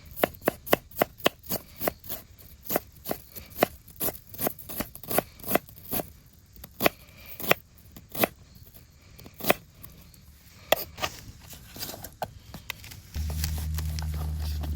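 Knife chopping on a cutting board: a quick run of sharp knocks at first, then slower, irregular cuts. A low steady hum comes in near the end.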